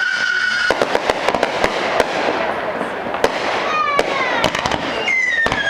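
Aerial fireworks display: a shrill, slowly falling whistle from a whistling shell breaks off into a rapid string of sharp bangs and crackles from bursting shells. A shorter falling whistle comes about four seconds in, and another long whistle starts near the end.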